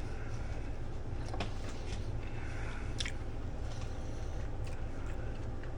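A person chewing a mouthful of spaghetti, with a few soft mouth clicks over a steady low hum.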